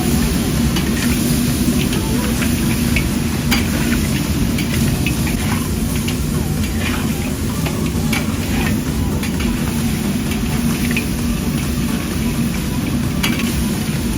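Steady kitchen cooking noise: a continuous low rumble and hiss with scattered light clinks throughout.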